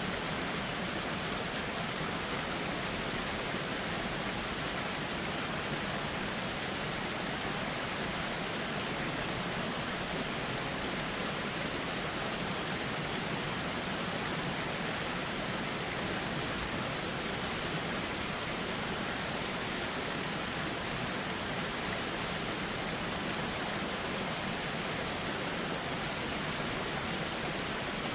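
Steady rushing of a flowing river, an even, unbroken wash of water noise with no separate splashes or other events.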